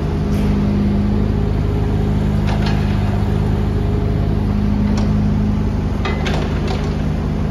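Kubota U27-4 mini excavator's diesel engine running steadily at raised revs while the machine slews its upper structure round and back, with a few short clicks from the working machine.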